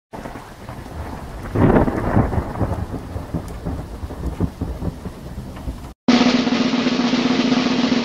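Thunderstorm sound effect: steady rain hiss with a loud rumbling thunder clap about a second and a half in. After a brief silent gap about six seconds in, a snare drum roll starts and runs on steadily.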